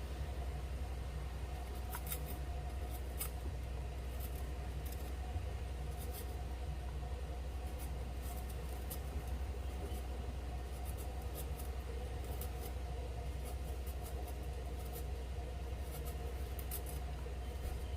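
Water chestnuts being peeled by hand: short, scattered scraping and clicking strokes over a steady low hum.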